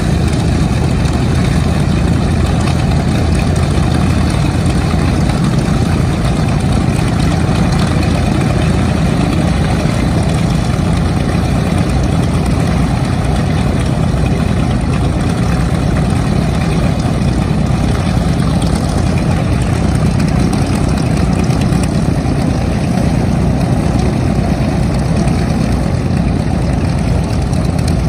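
North American B-25 Mitchell's two Wright R-2600 radial piston engines idling steadily after start-up, a loud, low, unbroken engine sound.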